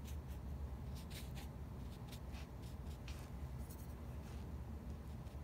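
Short, irregular scratchy strokes of a drawing tool on paper, a few a second, over a steady low hum.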